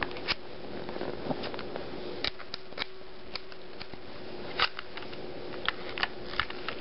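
Irregular sharp clicks and taps from a KWA KP8 compact green-gas airsoft pistol being handled during reassembly, its metal parts being pushed into place, over a faint steady hum.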